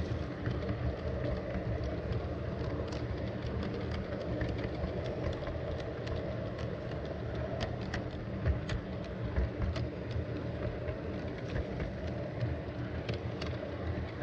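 Garden-railway log train running along its track, heard from on board: a steady low rumble from the wheels and drive, with frequent irregular clicks.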